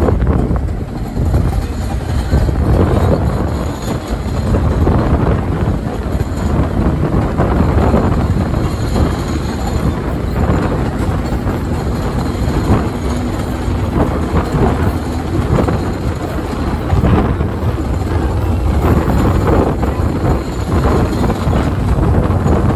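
New York City subway train running on the track: a loud, continuous rumble with irregular wheel clatter.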